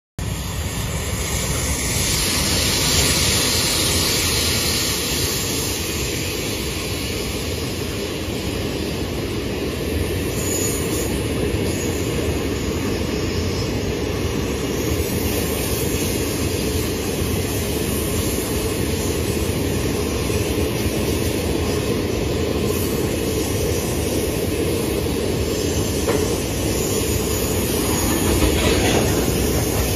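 A long freight train of tank wagons rolling past on the rails, its wheels making a steady, continuous rumble.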